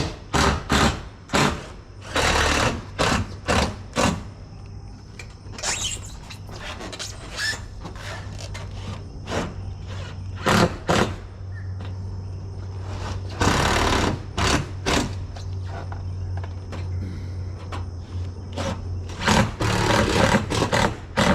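Knocking and clattering of work on a metal roof as sheet-metal roofing panels are handled and set in place: many sharp knocks, with a few longer noisy bursts of about half a second. A steady low hum runs underneath.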